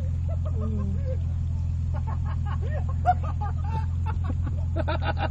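Steady low hum of a vehicle engine idling, with people talking quietly over it and louder voices near the end.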